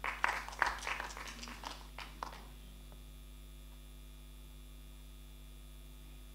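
Brief, scattered applause from a small audience for about two seconds, then only a steady electrical mains hum.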